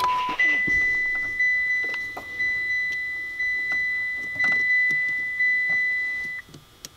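Electronic beeper: a short lower beep, then one steady high-pitched beep lasting about six seconds that cuts off suddenly, with faint clicks of handling wires underneath.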